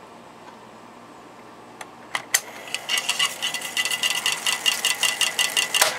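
Aiwa TP-719 reel-to-reel tape recorder's transport: a couple of button clicks, then about three seconds of rapid, even clicking with a steady high whine as the reels wind the tape at speed. It ends with a sharp clunk as the transport stops.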